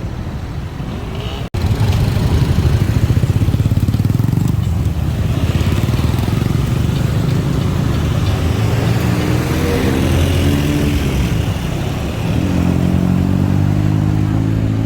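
Road traffic dominated by a motor vehicle's engine running close by, its pitch rising twice as it accelerates, near the middle and again toward the end. The sound drops out briefly about a second and a half in.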